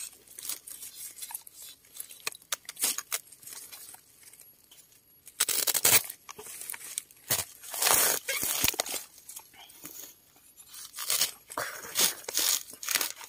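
Dry plant matter crackling, snapping and tearing in irregular bursts, as stalks and leaves are broken, pulled apart or trodden on in forest undergrowth.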